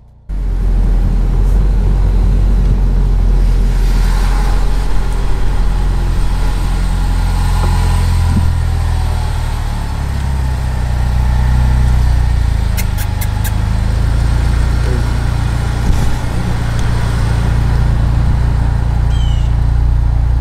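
Car engine running, heard from inside the cabin: a steady low rumble that cuts in abruptly just after the start.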